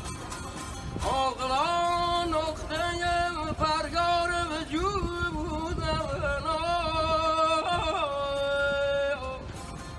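A man singing a plaintive Persian street song in long, ornamented held notes over a plucked long-necked lute. The voice comes in about a second in and ends on a long held note near the end.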